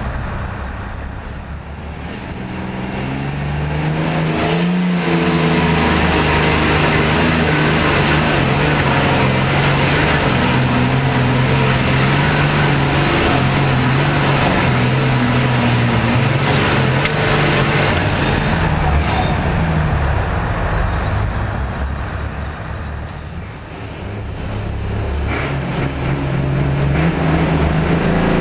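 Super farm class pulling tractor's engine heard from on board: it starts quieter, runs up about four seconds in and holds a steady loud pull for some fifteen seconds, then eases off. Near the end a second pulling tractor's engine builds up again.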